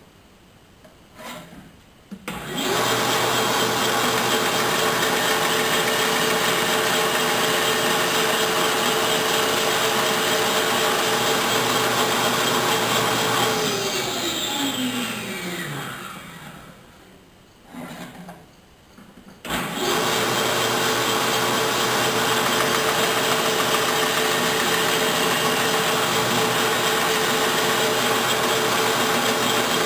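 Bandsaw motor switched on and running steadily with a constant hum. About halfway through it is switched off and its whine falls in pitch as the blade coasts to a stop. A few seconds later it is switched on again and runs while wood is fed through the blade.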